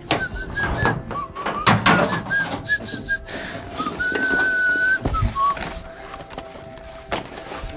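Someone whistling a tune in short notes, with one long held note about four seconds in, over knocks and clatter of objects being shifted about.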